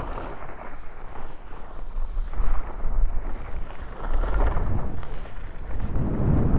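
Wind buffeting the microphone of a skier on the move: a low, uneven rumble with a rushing hiss, swelling about four seconds in and again near the end.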